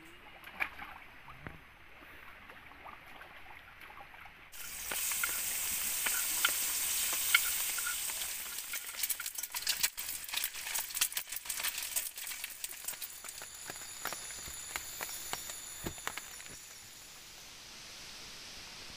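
Food frying in hot oil in a pan, sizzling with many crackling pops. The sizzle starts suddenly about a quarter of the way in and dies down to a softer hiss near the end.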